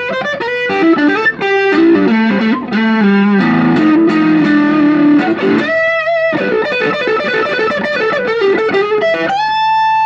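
Fender Stratocaster American Deluxe electric guitar played solo in a melodic single-note lead line. A long held note comes in the middle, then a high note about six seconds in, quick runs, and a held high note near the end.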